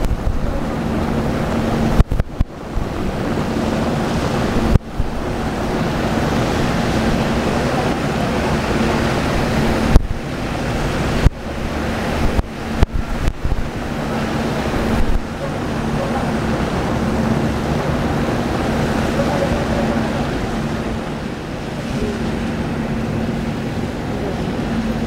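Wind buffeting the microphone over heavy rain, a steady rushing noise with a faint low hum beneath it, broken by several sharp knocks.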